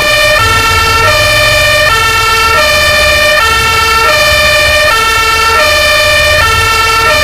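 Two-tone fire engine siren alternating steadily between a high note and a low note, switching about every three quarters of a second.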